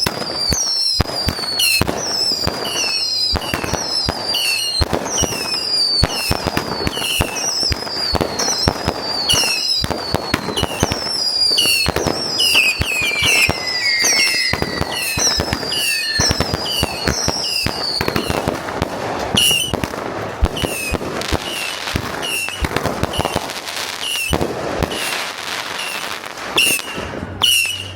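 Several fireworks going off at once: a dense, rapid crackling and popping, overlaid with a string of short falling whistles about two a second that thin out after roughly eighteen seconds.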